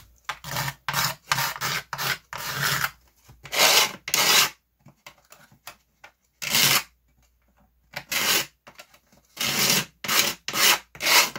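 A blade scraping cured epoxy sealer on the plywood inside a model boat hull, in a series of short rasping strokes in bursts with pauses. The sealer's surface is rough and fuzzy, and the scraping is taking that fuzziness off.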